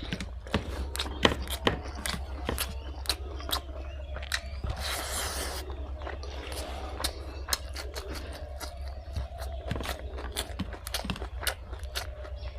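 Close-up chewing and biting of fried pork and rice, with many short wet clicks and smacks of the mouth, and a longer noisy stretch about five seconds in.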